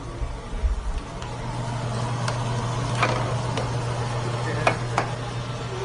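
Sambal frying in a wok, with a spatula knocking and scraping against the pan a few times in the second half, over a steady low hum. There are a few soft bumps under a second in.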